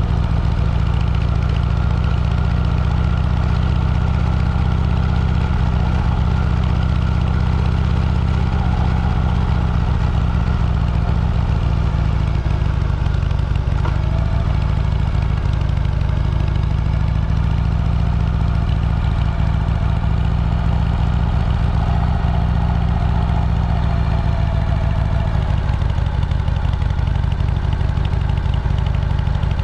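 A motor vehicle's engine running steadily on the move, heard as a continuous low drone that barely changes.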